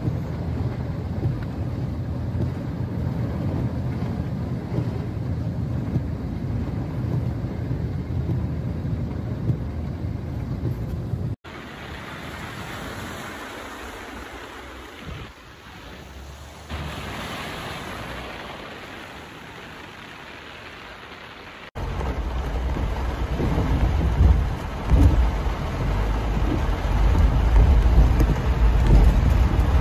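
Heavy rain and floodwater with a deep rumble on the microphone, in three separate recordings. The sound changes abruptly about eleven seconds in to a quieter, hissier rush of water and rain, and again about twenty-two seconds in to rain with loud, uneven low buffeting that grows toward the end.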